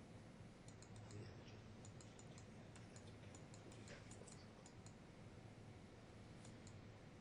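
Near silence: room tone with a steady low hum, and faint, irregular clicks of typing on a computer keyboard, thickest in the first five seconds and again briefly near the end.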